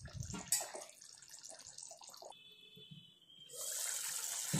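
Thick quail gravy bubbling in a frying pan: soft pops and ticks at first, a brief hush about two and a half seconds in, then a steady, louder hiss of fast bubbling.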